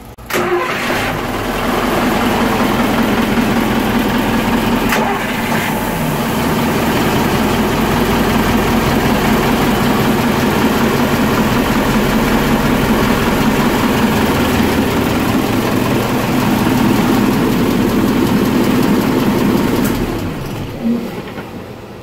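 Twin MAN 800 marine diesel engines start up at once, run at a steady idle, then wind down and stop about 20 seconds in. The shutdown is the fire-suppression relay cutting the engines as intended when the pressure-switch lead is pulled to simulate the extinguisher releasing.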